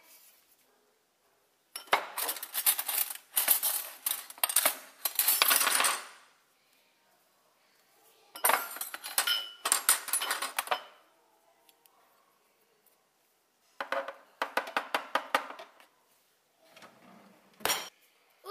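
Metal cutlery clattering and clinking in a plastic drawer organiser as a hand rummages through it, in three bursts with pauses between, then a single sharp knock near the end.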